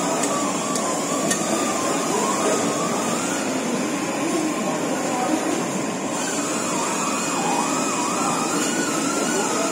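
A cleaver chopping into a large grouper, two sharp strikes in the first second and a half, then no more. Under it a steady background din with a wavering tone that rises and falls throughout.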